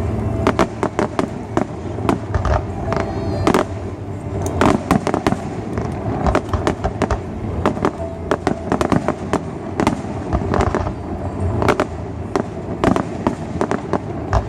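Fireworks display: a dense run of sharp shell bursts and crackling reports, several bangs a second, over a steady low background rumble.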